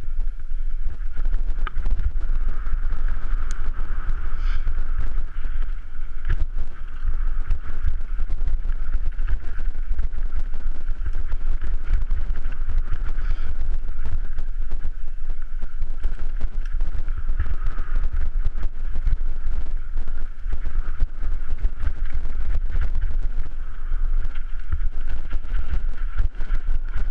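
Mountain bike descending a rough dirt trail: wind rumbling heavily on the camera microphone over constant rattling and knocking of the bike on the bumps, with a steady high buzz underneath.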